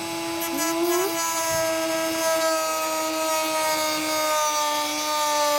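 Dremel rotary tool cutting into a carbon fiber diffuser: a steady high motor whine over a gritty cutting hiss. The pitch dips and recovers about half a second in as the tool bites, then sags slightly under load.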